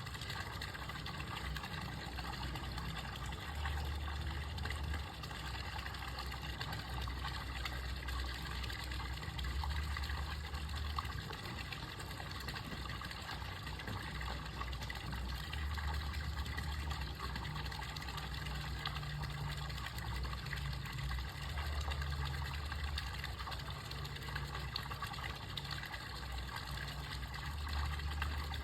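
Steady rush of flowing water, with a low rumble underneath that swells and fades every few seconds.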